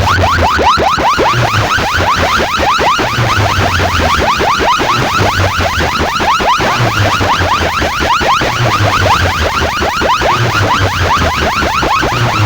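Electronic sound-check track played through a large DJ sound system: a fast rising chirp repeated about seven times a second, over a pulsing bass line.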